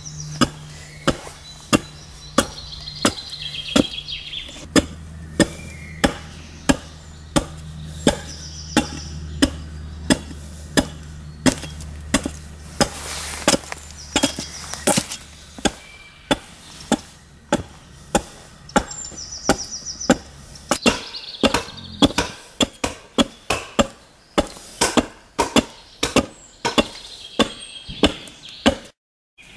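Bottoming adze chopping into a wooden chair seat to hollow it out: a steady rhythm of sharp strikes, about one and a half to two a second, quickening a little in the second half.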